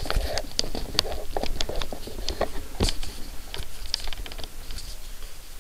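Singer 413 sewing machine's mechanism turned slowly by hand at the handwheel, giving a run of light, irregular clicks and ticks as the take-up lever is raised to the top of its travel.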